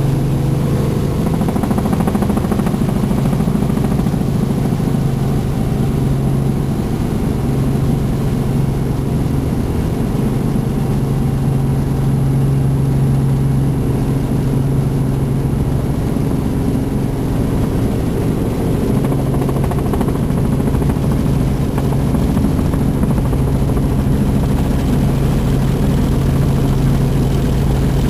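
Helicopter in flight heard from on board: steady, loud rotor and engine drone with a constant low hum.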